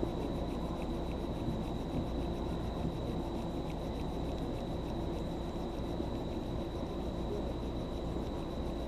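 Crickets trilling in one steady high unbroken tone, over a steady low background rumble.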